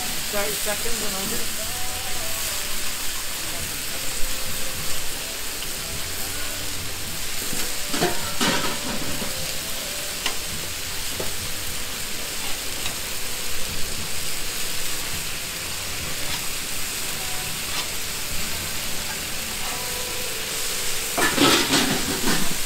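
Marinated chicken pieces sizzling on a hot flat-top griddle, a steady frying hiss. Metal tongs and a blade scrape and tap on the griddle plate as the meat is turned, loudest about eight seconds in and again near the end.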